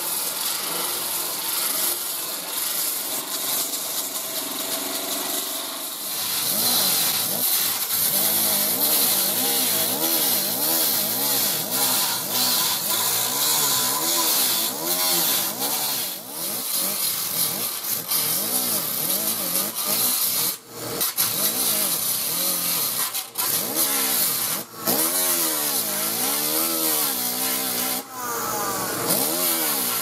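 Electric sander/polisher with a 40-grit fiber resin disc grinding down MIG welds on a steel patch panel. About six seconds in, a die grinder with a 3-inch cut-off wheel takes over: its whine dips and rises over and over as it is pressed onto the welds, and it stops briefly a few times near the end.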